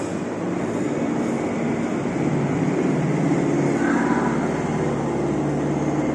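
Low engine rumble of a motor vehicle, swelling to its loudest about halfway through and then easing slightly.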